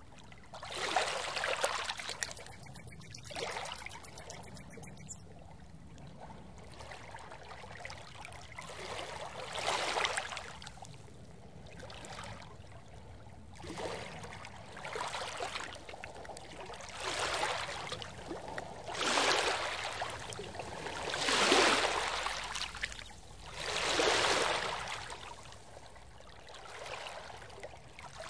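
Water rushing in swells, one every two to three seconds, each rising and fading over about a second.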